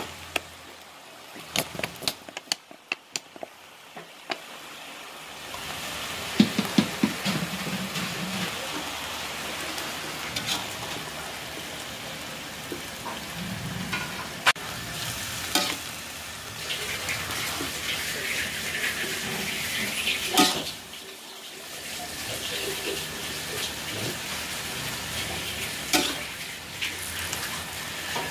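Water spinach stir-frying in a metal pot: a steady sizzle, with the metal spatula clicking and scraping against the pot as the greens are tossed. The first few seconds are mostly sharp spatula clicks, and the sizzle swells about five seconds in.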